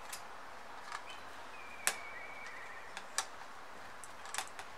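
Pliers gripping and turning a small button-head screw on a folding propeller mount: a few sharp, irregular metal clicks, the loudest about two seconds in.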